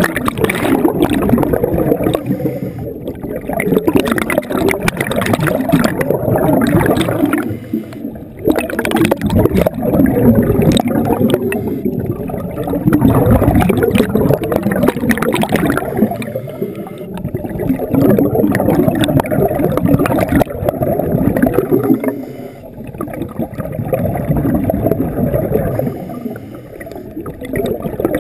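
Scuba exhaust bubbles gurgling from a diver's regulator, heard through an underwater camera, swelling and fading in surges every four to five seconds with the diver's breaths.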